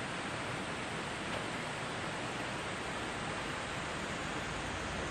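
Steady rushing of a mountain stream.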